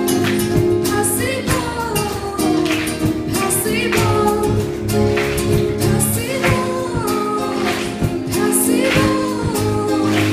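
Music with singing: sung melody lines over sustained chords, with a regular high accent about every second.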